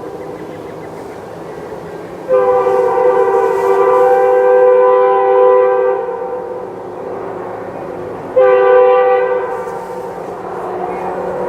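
Nathan Airchime multi-chime locomotive horn sounding a chord: a long blast starting about two seconds in, then a shorter blast about eight seconds in. Between and after the blasts the horn goes on more softly, with a rushing noise growing near the end.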